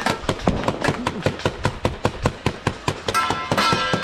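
Many people clapping and banging together, a dense, uneven clatter of sharp claps and strikes, about five or six a second. About three seconds in, a ringing metallic tone joins in.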